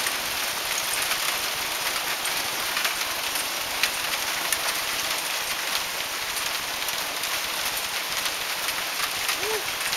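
Heavy hail pelting down: a dense steady hiss of falling ice, peppered with sharp clicks and ticks as individual hailstones strike the deck.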